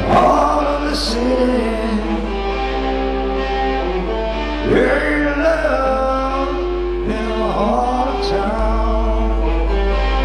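Live rock band playing: electric guitars, bass and drums.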